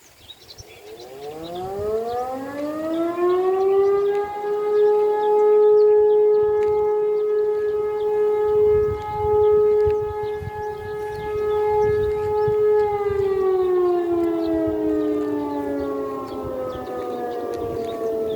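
E57 electromechanical fire siren sounding the 'Feueralarm' signal. It winds up in pitch from about a second in, holds a steady tone for about nine seconds, then winds down, falling in pitch near the end.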